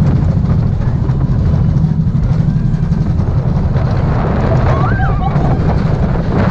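Vekoma mine train roller coaster's train running along its steel track, a steady loud rumble with clattering wheels, heard from a seat on the train. A short tone rises and falls about five seconds in.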